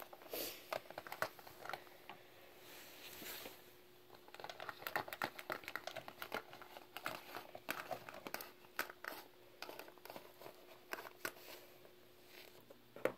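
Littlest Pet Shop plastic figures being handled and set down on a plastic playset: light, irregular clicks and taps mixed with soft rustling.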